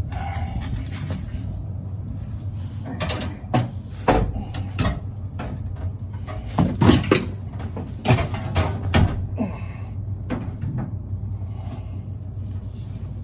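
Scattered knocks and clatters of hands and tools working on an air-conditioning condensing unit during a compressor change, the loudest a few seconds apart in the middle, over a steady low hum.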